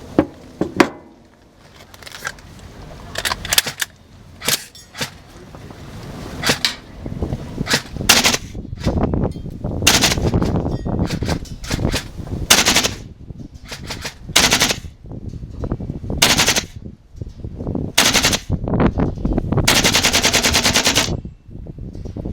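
Gas blowback airsoft rifle firing a string of single shots at uneven intervals, each a sharp crack with the clack of the blowback bolt, then a rapid full-auto burst of about a second and a half near the end. Strong wind buffets the microphone between shots.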